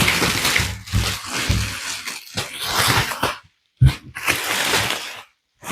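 Packaging rustling and scraping as a heavy hydraulic RC excavator is worked out of its box, with a few dull knocks of handling. It is broken twice by brief, abrupt silences.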